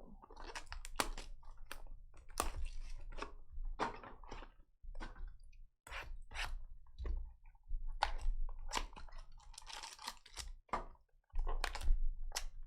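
Crinkling and tearing of plastic wrap and foil pack wrappers as a sealed box of trading cards is opened and its packs are ripped, with irregular crackles and sharp clicks of cardboard and cards being handled.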